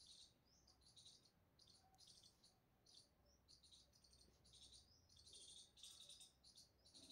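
Near silence, with faint high-pitched chirping in short, quick bursts.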